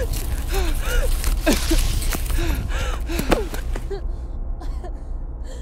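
A woman gasping and panting in panic, with short pitched gasps, over rustling and crackling of leaves and branches as she crashes through forest undergrowth, and a low rumble underneath. The brush noise stops abruptly about four seconds in, and her gasping breaths continue.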